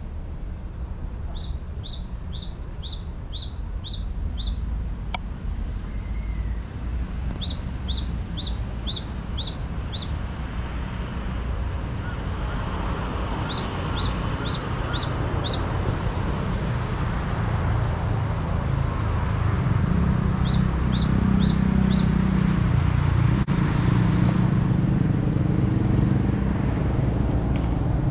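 A songbird singing four short phrases of quick, high, repeated down-slurred notes, each phrase about five to seven notes long. Under it runs a steady low rumble that grows louder in the second half.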